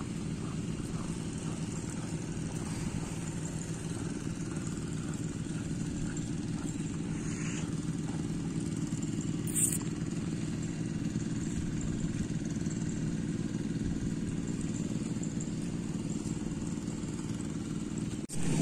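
A small engine running steadily throughout, with a brief click about ten seconds in.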